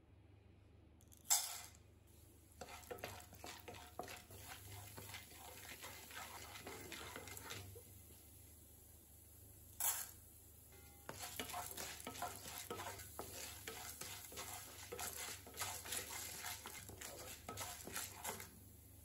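Dal frying in hot oil in a pan: two sudden sizzles where a spoonful of dal hits the oil, about a second in and again about ten seconds in, each followed by several seconds of crackly sizzling. Near the end the frying dal is stirred with a wooden spatula.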